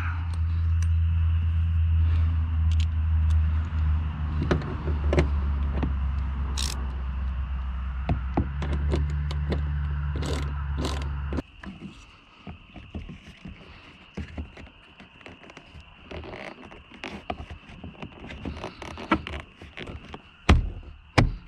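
A steady low hum that stops abruptly about eleven seconds in, under scattered clicks, scrapes and knocks of the door's interior trim being handled and fitted, ending with a few loud thunks.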